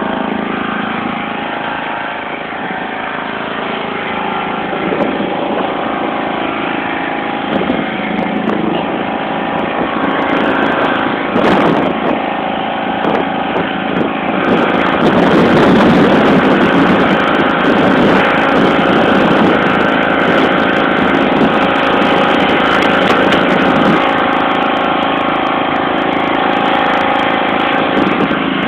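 1991 John Deere LX176 lawn tractor's single-cylinder Kawasaki engine running steadily as the tractor pushes snow with a front blade. From about halfway in it gets louder and rougher for roughly ten seconds, then settles again.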